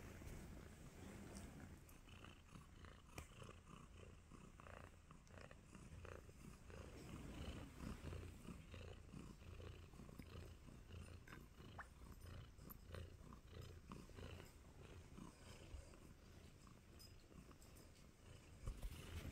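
Tabby kitten purring softly and steadily, a contented low rumble, with faint scattered clicks now and then.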